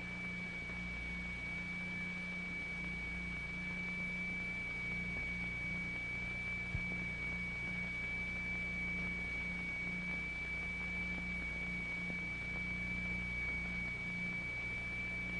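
A steady high-pitched tone held at one unchanging pitch, over a low mains hum and tape hiss: the sound of the tone driving the crystal-excited vibrating plate on which the sand flows.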